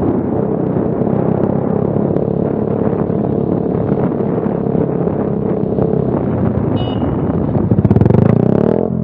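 Motorcycle engine running steadily under wind noise. It grows louder for about a second near the end, its pitch sweeping.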